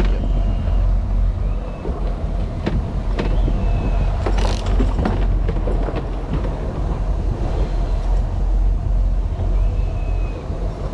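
Boat engine running steadily under way, a continuous low rumble, with wind buffeting the microphone and a few scattered knocks.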